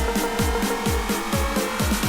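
Electronic dance music with a steady kick drum about four beats a second and hi-hat ticks over a held synth note.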